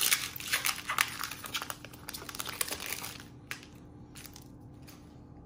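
Shiny foil wrapper of a trading card booster pack crinkling as it is torn open by hand. A dense crackle thins to a few light clicks after about three seconds.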